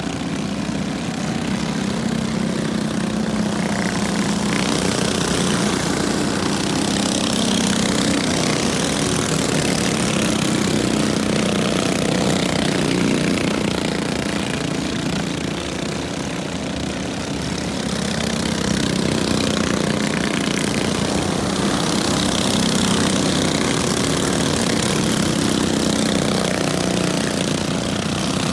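Several junior sprint cars' small engines running together at speed, a steady drone that eases and swells a little as the pack moves around the track.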